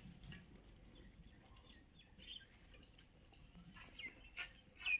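Small birds chirping faintly, many short scattered chirps, a little louder near the end.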